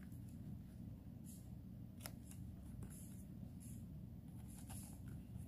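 Small knife cutting into the firm flesh of a large bitter bolete around its stem: a handful of short, faint cutting and scraping strokes over a low steady hum.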